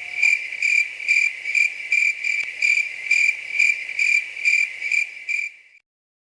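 Cricket chirping sound effect: a high, steady chirp repeating about twice a second, used as the comic 'crickets' cue for a long, empty wait. It cuts off abruptly near the end into silence.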